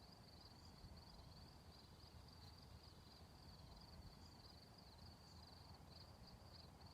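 Faint, steady insect trilling at one high pitch, over a low rumble.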